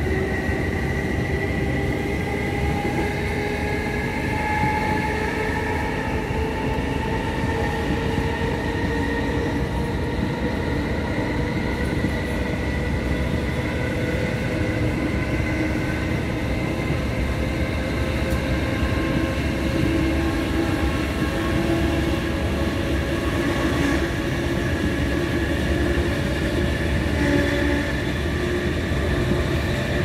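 Traction motors of a British Rail Class 317 electric multiple unit whining as the train pulls away from a station. Several tones climb slowly together in pitch as it gathers speed, over a steady rumble.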